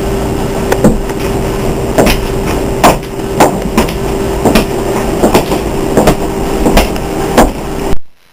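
A steady hum with irregular clacking knocks every half second to a second, cutting off abruptly near the end.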